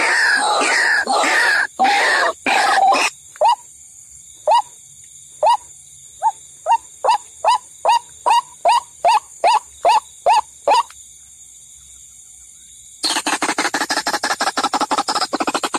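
White-breasted waterhen calls from a bird-trapping lure recording. It opens with a dense jumble of overlapping croaking calls, then a run of single short call notes that come faster and faster over several seconds. After a pause of about two seconds, a rapid pulsing bout of calls starts near the end.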